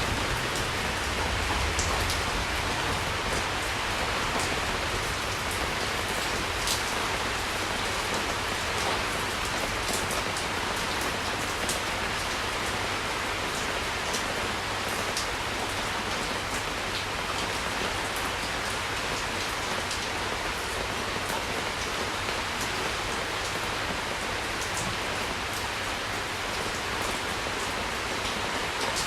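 Steady rain falling: an even hiss of rainfall with scattered sharper drop hits.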